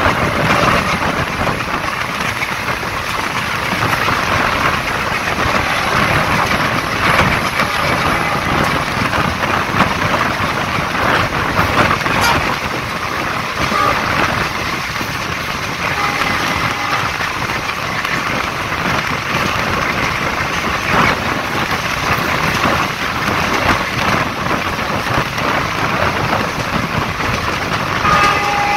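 Passenger train running at speed, heard at an open coach window: a steady rush of wind and rumble of the wheels on the rails, with an occasional sharp clack.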